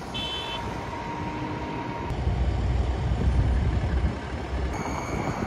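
Road traffic and idling vehicles at an intersection, as a steady noisy hum. Wind buffets the microphone with a heavy low rumble from about two seconds in until near the end, and there is a brief high chirp near the start.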